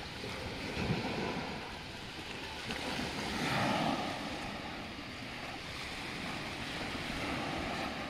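Small sea waves washing onto a pebble beach, swelling a little about three seconds in, with wind on the microphone.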